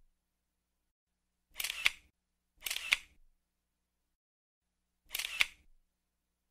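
Three short clicking sounds, each a quick pair of clicks lasting about half a second: the first about a second and a half in, the second about a second later, the third past the middle. Dead silence between them.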